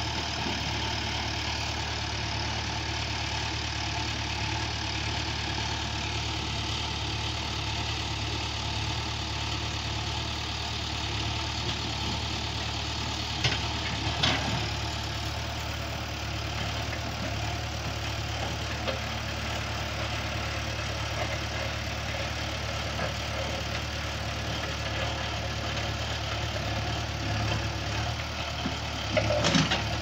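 JCB 3DX backhoe loader's diesel engine running steadily while the backhoe arm works. There are two short knocks about halfway through and a louder clatter of knocks near the end.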